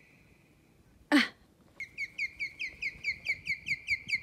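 Osprey calling: a rapid series of sharp, whistled chirps, about five a second, starting about two seconds in. A brief loud noise about a second in.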